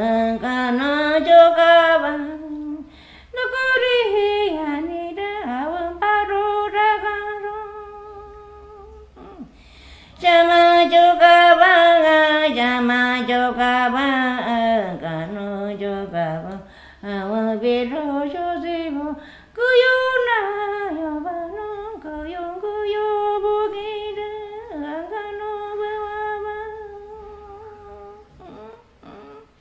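A Shipibo-Konibo healer's solo voice singing a slow, unaccompanied chant, with long held notes that slide between pitches. The singing comes in several phrases with short pauses between them and fades near the end.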